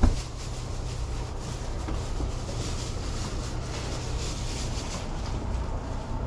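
Steady low rumble with an even hiss of background noise, like wind on the microphone.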